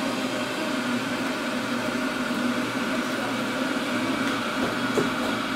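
Steady hum of an electric fan motor with an even rush of air, unchanging throughout.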